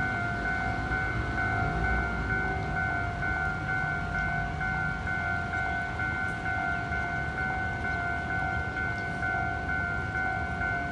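Taiwanese railway level-crossing warning bell ringing in a steady, evenly repeating electronic tone, signalling that a train is approaching, over a low rumble.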